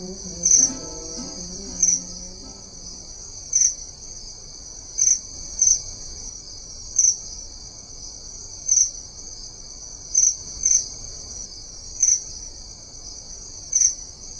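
Crickets chirring: a steady high trill with louder chirps every second or two. The last guitar notes of the song die away in the first couple of seconds.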